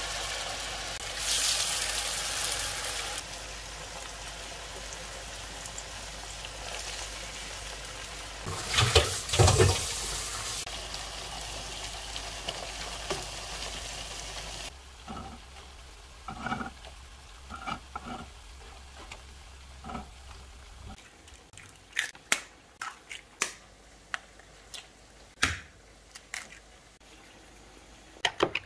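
Sweet potato slices frying in a pan of oil: a steady sizzle that swells louder about a second in and again about nine seconds in. About fifteen seconds in the sizzle stops, and a few short knocks and then sharp taps follow as eggs are cracked into a bowl.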